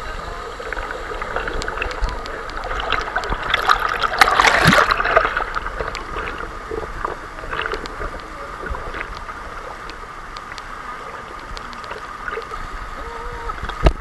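Running water rushing steadily, with a louder burst of splashing about four seconds in.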